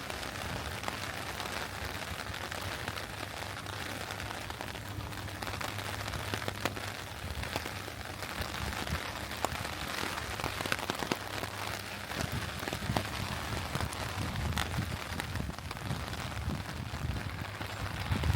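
Steady rain falling, with scattered sharp ticks of single drops striking.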